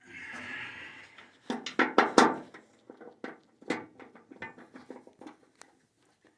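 Handling noise: a scraping rustle for about a second, then a quick cluster of loud clicks and knocks and a scatter of lighter clicks.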